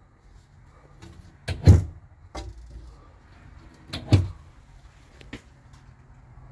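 Mirrored medicine cabinet doors being handled, knocking against their catches: two sharp knocks about two and a half seconds apart, with a few lighter clicks between and after.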